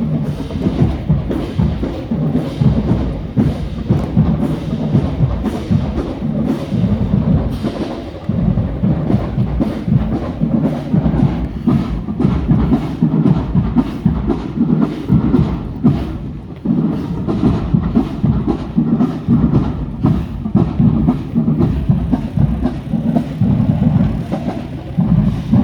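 Marching band playing with heavy drums and bass drum driving a steady, fast beat.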